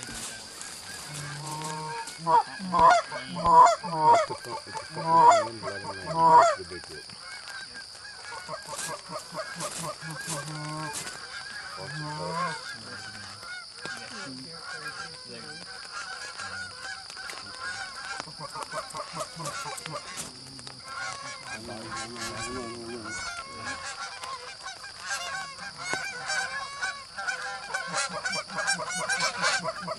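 Flock of Canada geese honking as they fly in, many calls overlapping. A run of loud, close honks comes a couple of seconds in; the flock's honking then carries on quieter and builds again near the end.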